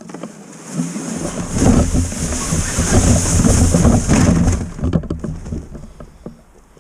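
Crunching and rustling of walking a narrow snowy path and pushing through dry brush, with wind rumbling on the microphone. Loudest in the middle few seconds, then fading.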